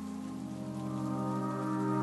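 Ambient music with long, sustained chords over a steady patter of rain. A new, fuller chord comes in shortly after the start and swells louder toward the end.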